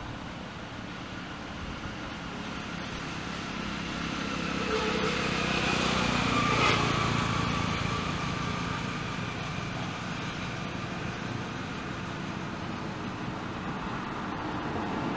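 A motor vehicle passing: it grows louder to a peak about six and a half seconds in, then fades back into a steady background hum.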